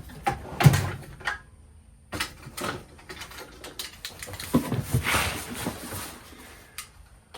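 Cardboard shipping box being opened and its packing handled: scattered knocks and clicks with cardboard and wrapping scraping and rustling, a longer rustle about five seconds in.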